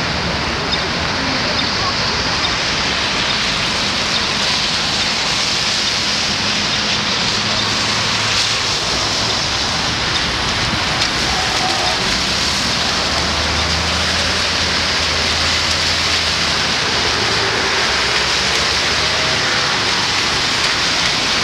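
Rain and traffic on a wet city street: a steady hiss of rain and tyres on wet road, with a low engine hum from passing vehicles that swells in the second half.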